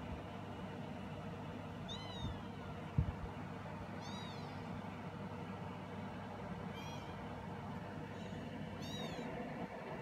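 Young kittens mewing, about five short high-pitched calls a couple of seconds apart, each rising and falling in pitch, as they jostle to nurse from their mother. A soft thump about three seconds in.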